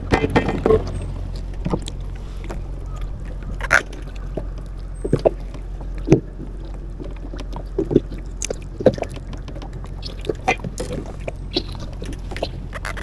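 Scattered sharp clicks and light knocks of a freshly caught fish and fishing gear being handled on a small boat's deck, over a steady low hum and water noise.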